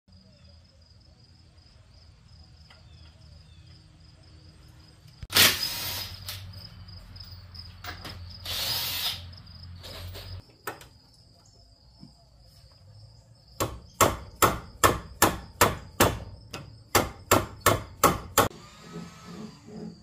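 A cordless impact wrench runs in two short bursts, then a hammer strikes a dozen or so sharp blows in quick succession, about three a second.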